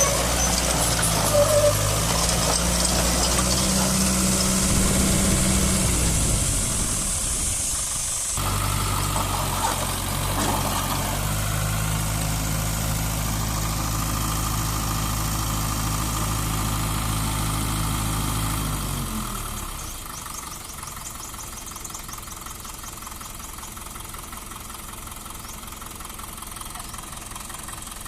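Mitsubishi BD2E bulldozer's diesel engine running under load while the machine is driven, the engine note rising and falling. There is a sudden break about 8 seconds in, then a steady run until the engine is throttled back to a quieter idle about two-thirds of the way through.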